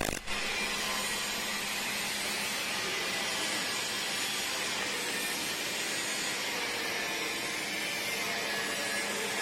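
CO2 (MIG) welding arc giving a steady hiss with a faint low hum. It starts just after a short break that cuts off a rumbling machine.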